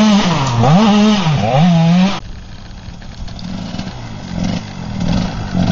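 TM 80 two-stroke dirt bike engine revving under load on a steep trail climb, its pitch dipping and rising with the throttle. About two seconds in it cuts off abruptly to a quieter, more distant bike engine.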